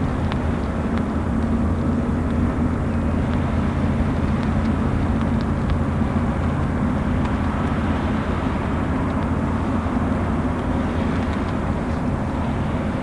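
Steady low drone of ship engines running, heard over water under an even hiss of heavy rain, with an occasional faint tick of drops.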